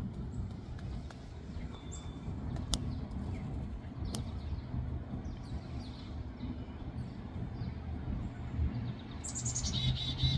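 Small birds chirping, with scattered short chirps and a louder, rapidly pulsed call near the end, over a steady low rumble.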